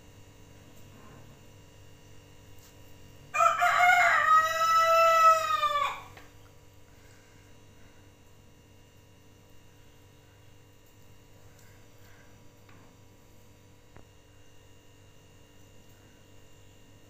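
A rooster crowing once, a few seconds in: a single call of about two and a half seconds that drops in pitch at the end, over faint room tone.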